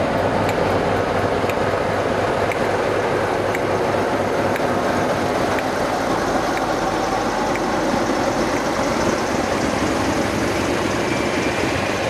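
Class 47 diesel locomotive engine running steadily beside the platform, with a light click about once a second.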